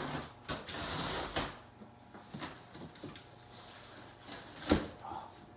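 A large cardboard box being opened by hand: the flaps rustle and scrape as they are pulled up, with a few light knocks and a sharper knock near the end.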